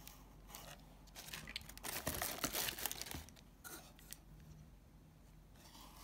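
Handling noise: a plastic acrylic powder jar being picked up and turned, with long acrylic nails clicking against it and light crinkling of tissue paper. The busiest, loudest stretch comes about two seconds in and lasts about a second.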